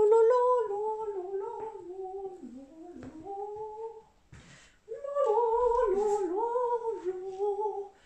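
A woman humming a wordless melody in two long phrases, with a short break about halfway through.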